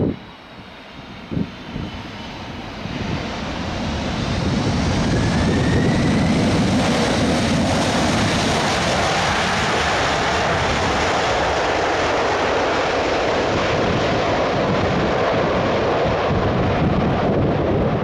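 Boeing 747-400F just after touchdown: a brief thump about a second and a half in, then its four jet engines spool up into reverse thrust over a couple of seconds and hold a loud, steady roar through the rollout.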